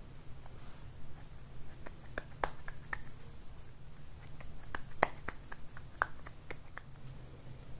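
Hands rolling a ball of nerikiri (sweet white bean-paste dough) and pressing it flat between the palms: soft rubbing of skin on dough with scattered small clicks and taps, the loudest about two and a half and five seconds in.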